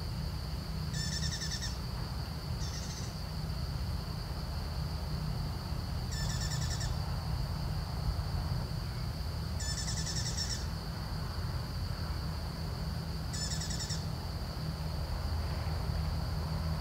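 A bird gives short trilled calls, five of them a few seconds apart, over a steady high-pitched whine and a low rumble.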